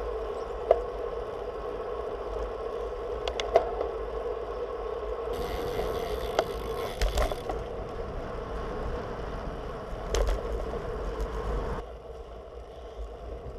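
Road bike riding at speed on asphalt: steady tyre and wind noise with a low rumble and a humming tone, broken by a few sharp knocks. A hiss joins for about two seconds near the middle, and the noise drops in level near the end.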